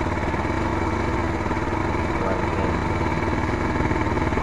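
Motoyama 150 motorcycle engine idling steadily at low revs.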